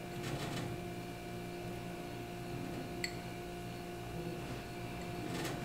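Quiet room tone with a steady electrical hum, and one faint tick about three seconds in.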